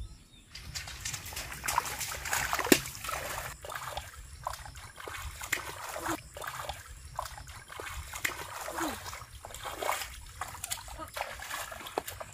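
Splashing and sloshing in shallow floodwater as hands grab at a struggling fish, in irregular bursts of splashes, with one sharp slap of water a little under three seconds in.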